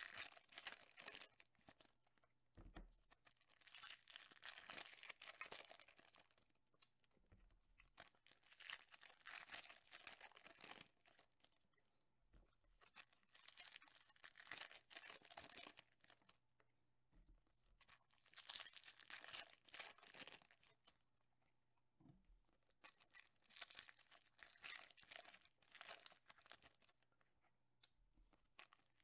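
Faint tearing and crinkling of 2014 Topps Chrome Mini foil trading-card packs being ripped open one after another, a new pack about every five seconds, each with a soft low thump.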